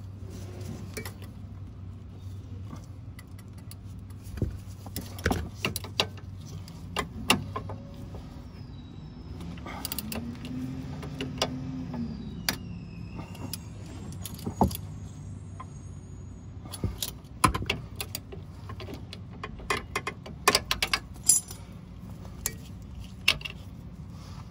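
Scattered metal clicks and clinks of a wrench and the link's nut and hardware being worked at a car's front stabilizer link, coming thickest in the second half. A low steady hum runs underneath.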